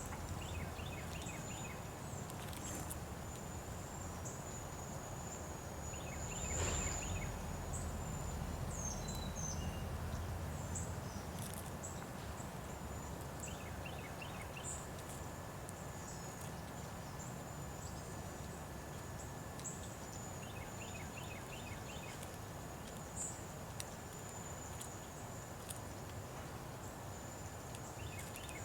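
Outdoor ambience: a steady high insect trill under a low background hum, with small birds chirping in short bursts a few times.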